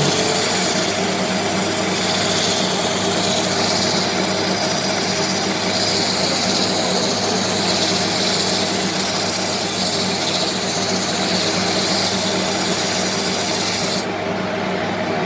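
Wood lathe running steadily, with a hiss from a tool working the spinning mahogany that stops near the end while the motor keeps running.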